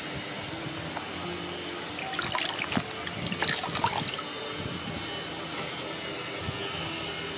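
Water splashing and dripping in a plastic basin as a bunch of enoki mushrooms is swished through it and lifted out. The splashes come in a cluster between about two and four seconds in.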